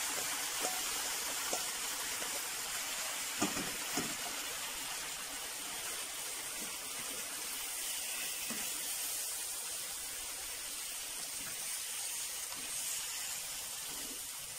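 Marinated pork and its marinade sizzling in a hot pan, a steady hiss, as it is stirred with a spatula. Two light knocks of the spatula against the pan come about three and a half and four seconds in.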